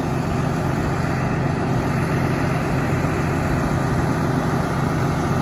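Diesel engine of a 2010 Ford F750 bucket truck idling steadily.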